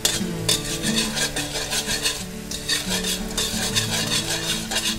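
A perforated metal spatula scraping and stirring in a steel wok, a few metal-on-metal strokes a second, over fish sauce and sugar sizzling and bubbling in a little oil as they cook down to a foamy sauce.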